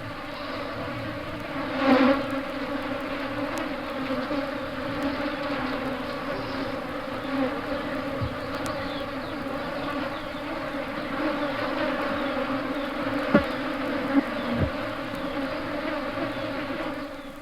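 A bluebottle fly buzzing in flight, a continuous wingbeat drone with a steady hum of stacked tones. It swells louder about two seconds in, and a couple of sharp ticks come near the end.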